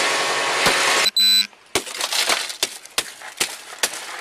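A rush of noise is cut off about a second in by a short, loud electronic beep. After it come scattered clicks and knocks: handling and clothing noise rubbing on a body-worn camera.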